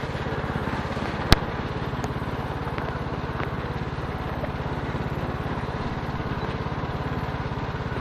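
TroyBilt Bronco lawn tractor's 19 hp Kohler Courage engine running steadily as the tractor drives through woodland. A single sharp crack about a second in stands out above the engine.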